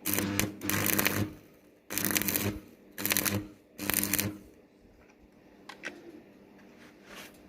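Electric arc welding on thin 1 mm iron sheet, done in five short crackling bursts of about half a second each with a welding-machine hum beneath them. Short stitches like these keep such thin metal from burning through. A few faint ticks follow.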